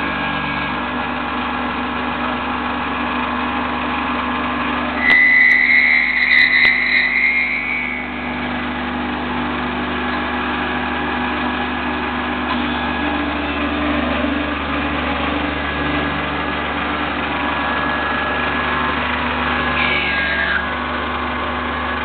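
Intorex TR90 automatic lathe running with a steady machine hum. About five seconds in, a loud high-pitched squeal with a few sharp clicks lasts some three seconds, and near the end a short falling whine sounds.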